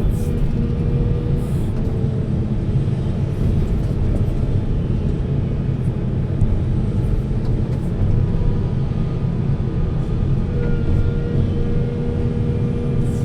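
Heavy diesel machinery engine running steadily, a low, continuous drone with a faint steady hum on top.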